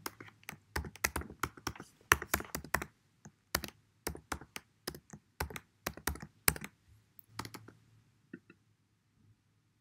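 Typing on a computer keyboard: irregular runs of key clicks, stopping about seven and a half seconds in, then a couple of faint clicks.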